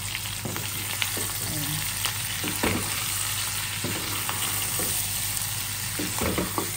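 Pork belly cubes and sliced onion sizzling in their own rendered fat in a nonstick pan, with no oil added, while a wooden spatula stirs them, scraping and knocking against the pan now and then.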